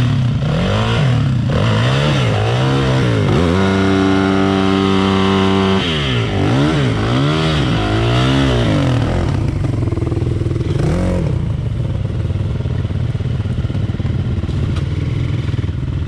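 Enduro motorcycle engine revving up and down in quick repeated blips, held at a steady high rev for about two seconds a few seconds in, then blipping again. In the second half the revs drop and a steadier rushing noise takes over, with one more short blip.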